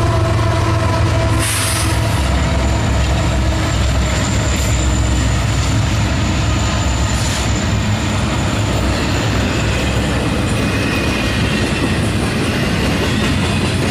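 Union Pacific diesel locomotives, a GE unit and an EMD SD70ACe, passing close by under power with a steady low engine rumble, followed by double-stack container well cars rolling past with wheel and rail noise. A thin high wheel squeal runs through the middle.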